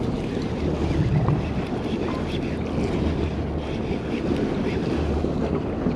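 Wind buffeting the microphone over open sea water, with a steady low rumble and a few faint ticks.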